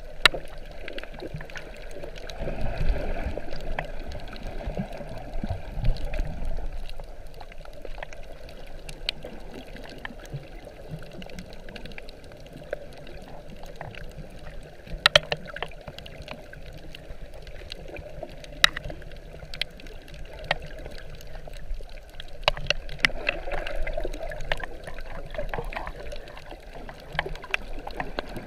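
Underwater sound picked up by a GoPro in its waterproof housing while snorkeling: muffled sloshing and rumbling of moving water, with scattered sharp clicks.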